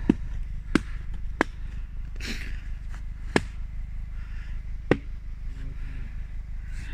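Several sharp hammer blows at uneven intervals, over a low steady rumble.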